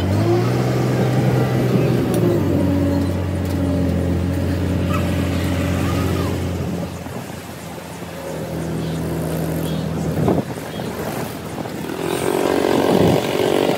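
Mobile crane's diesel engine running under load, its pitch stepping up and down as the operator revs it to hoist the loader's wheel and hub assembly, with a single knock about ten seconds in.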